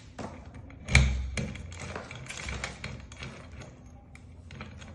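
Metal clicks and taps from a key and lock cylinder being handled while a Kwikset SmartKey lock is rekeyed, with one louder knock about a second in and lighter clicks after it.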